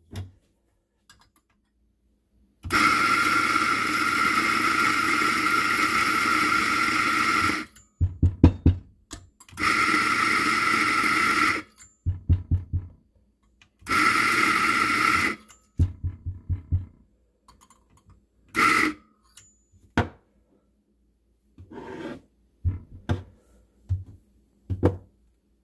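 Eureka Mignon Specialità espresso grinder's motor running as it grinds coffee beans: one long run of about five seconds, then two shorter runs and a brief burst, each starting and stopping cleanly. Between the runs come short quick series of dull knocks.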